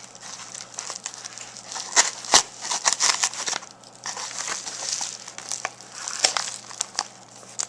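A white mailing package crinkling and tearing as a pocket knife cuts into it and hands pull at the wrapping, with many small clicks and scrapes. The busiest stretches are about two to three and a half seconds in and again around six seconds.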